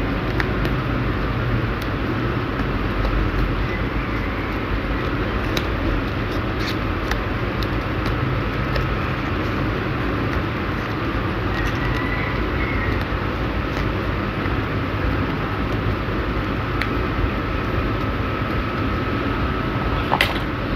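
Steady low rumble and hiss of background noise, with scattered small clicks and crinkles of a sheet of paper being folded and pressed by hand.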